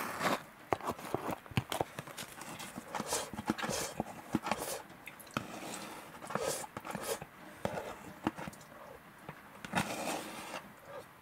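Close-miked eating and handling noises: irregular sharp clicks and taps with soft mouth sounds, thinning out for a moment near the end before a few more bursts.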